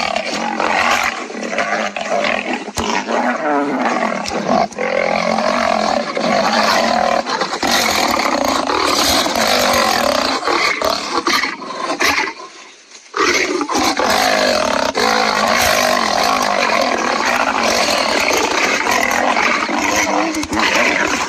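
Lion and tiger roaring as they fight, almost without pause, with a break of about a second roughly twelve seconds in.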